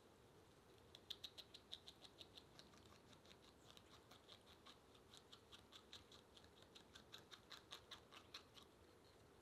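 A North American beaver chewing at the water's edge: a rapid run of crisp clicks, about five a second, that starts about a second in and stops near the end.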